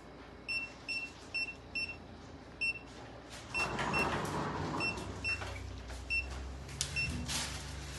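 Surgical patient monitor giving short, high pulse beeps, about three a second, during a cat's anaesthesia. A stretch of rustling noise comes about halfway through, and more noise near the end.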